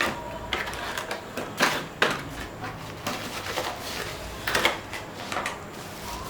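Handling sounds: scattered knocks, clicks and rubbing as monitor parts and packaging are handled, the loudest clusters about two seconds and four and a half seconds in.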